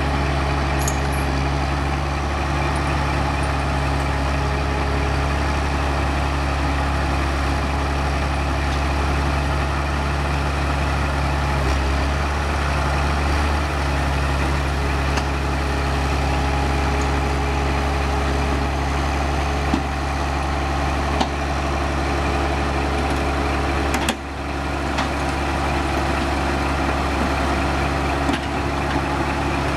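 Forestry harvester's diesel engine running steadily as the machine creeps up onto a lowboy trailer, with a few light knocks and a brief sudden dip in the engine sound about three-quarters of the way through.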